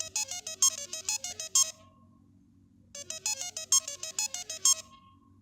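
Samsung Galaxy Note 3 ringtone: a short, quick melody of bright, high notes, played twice with a pause of about a second between.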